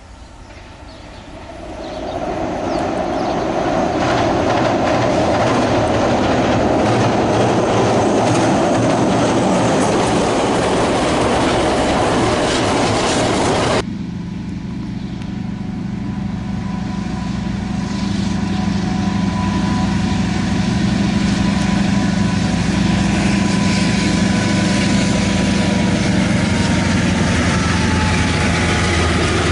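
Freight train hauled by KiwiRail DL class diesel-electric locomotives, first rumbling onto a steel truss bridge with the noise building over the first few seconds. About halfway through, a cut to the locomotives passing close: a steady low diesel engine drone with a thin whine above it.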